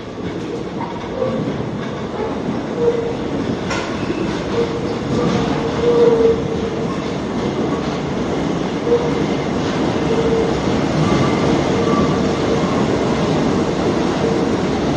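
NYC subway rail adhesion train (stainless-steel R32-type cars) entering an underground station and running past along the platform. It grows louder as it comes in, and a wavering tone comes and goes over the rumble of the cars.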